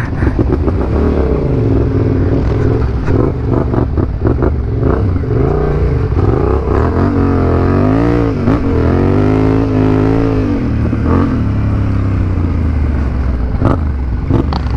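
Yamaha Ténéré 700's parallel-twin engine running under the rider across rough dirt, its revs rising and falling several times as the throttle opens and closes, with a deep dip and pick-up about eight seconds in.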